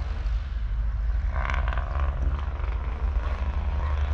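The Thornycroft Antar Mk3's Rolls-Royce 16.2-litre supercharged eight-cylinder diesel is running, a low, steady engine note. About a second and a half in, a brief higher-pitched sound rises over it for about half a second.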